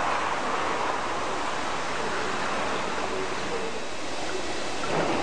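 Steady hiss and hum of railway station ambience, with electric trains standing at the platforms. There is a slight swell near the end.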